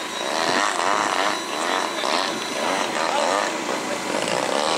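Engine and propeller of a radio-controlled An-2 model biplane running as it flies past, with people's voices.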